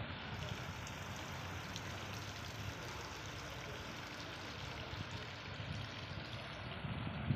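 Small fountain jets arcing into a pool, giving a steady splashing of water.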